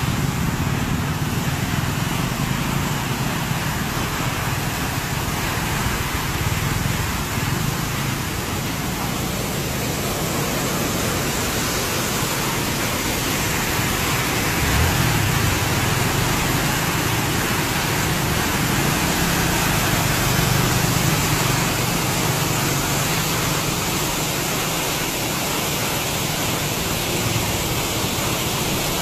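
Water jetting from a burst large water main and raining down as spray, a steady rush of noise with no break.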